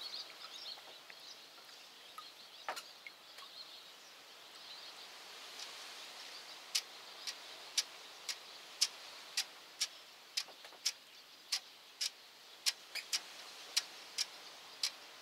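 Drips of bitumen dissolved in petrol falling from a freshly dipped fishing-net mesh back into the bucket: a run of small sharp ticks, about two a second, starting about halfway through, over faint background hiss.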